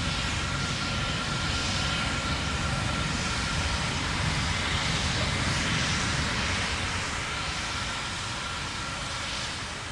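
Terran 1 rocket's first-stage engines in ascent, a steady rough rumble of exhaust noise that eases slightly in the last few seconds. The first stage carries nine Aeon 1 methane-oxygen engines.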